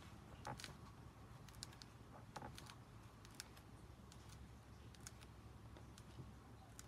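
Near silence with faint, scattered short clicks and soft rustles from the pages of a large softcover picture book being turned by hand.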